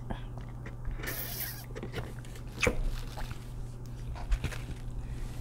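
A short slurp through a drinking straw about a second in, followed by scattered small clicks and rustles as the paper fry box and sauce cups are handled. A steady low hum runs underneath.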